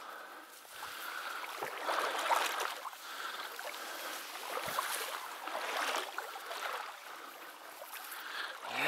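Water sloshing and swishing in a run of uneven surges, from movement through shallow marsh water.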